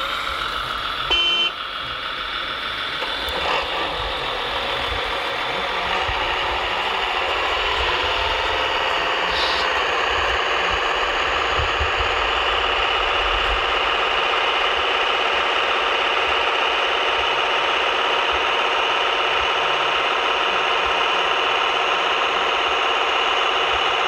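A radio-controlled MAN tipper truck model runs steadily with the hum of its electric motors and a simulated truck engine sound, joined by the loader model's motors. A short loud tone sounds about a second in.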